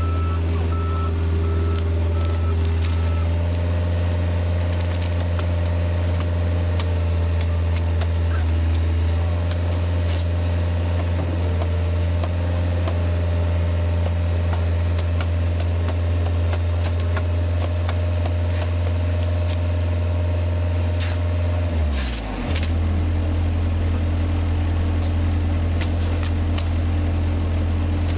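Compact tracked skid-steer loader's engine running steadily close by, its note dipping and settling at a different pitch about three-quarters of the way through. A reversing beeper sounds briefly at the start, and scattered light knocks come through.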